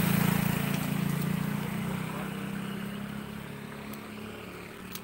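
Yamaha Mio J automatic scooter's single-cylinder engine riding past and off down the road on a test ride after a service, its steady note fading over a few seconds. A couple of sharp clicks come at the very end.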